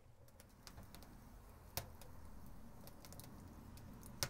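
Oak-wood fire crackling faintly in an offset smoker's firebox: scattered small pops over a low steady rush, with sharper pops about two seconds in and near the end.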